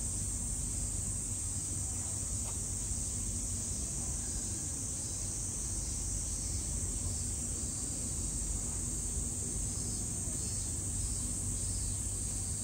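Steady, shrill insect chorus droning without a break, with a low steady hum underneath.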